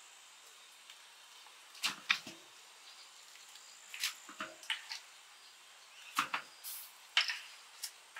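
Irregular short knocks and clatters of a wooden stirring stick against a large metal cooking pot as boiling corn is stirred and turned, in small clusters of two or three.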